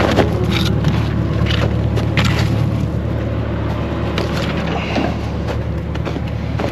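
Caterpillar 305E2 mini excavator's diesel engine running steadily under load while wood splinters, cracks and crunches in a string of sharp snaps as demolition debris is broken up.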